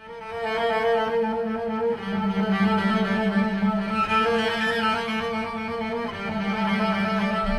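Bowed cello music with layered, sustained notes that comes in right after a short silence and holds at a steady level.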